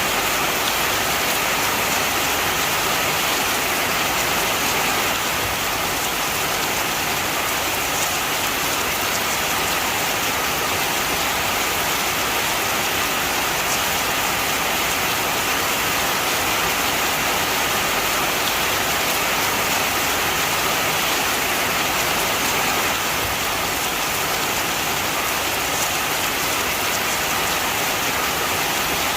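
Heavy rain falling steadily and pattering on surfaces, an even, unbroken hiss.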